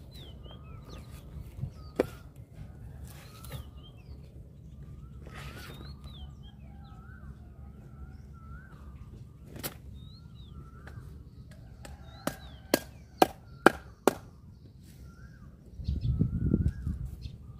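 Knife chopping down onto a round wooden chopping block while butchering striped catfish: single sharp chops about 2 s and 10 s in, then a quick run of five, about two a second, two-thirds of the way through. Birds chirp throughout, and a low rumble rises briefly near the end.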